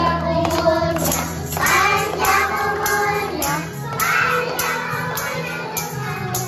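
A group of young children singing a birthday song together over backing music, clapping along in a regular beat.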